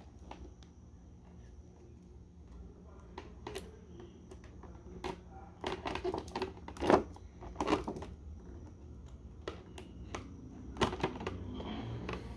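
Irregular clicks, crackles and rustles of a cardboard-and-clear-plastic action figure window box being handled and opened. The plastic flexes and crinkles, in a dense cluster in the middle and again near the end.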